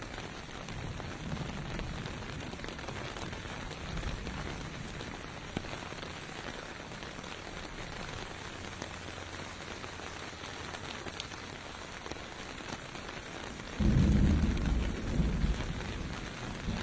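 Steady rain falling on pavement, an even hiss. About three-quarters of the way in a sudden low rumble rises over it and lasts a couple of seconds.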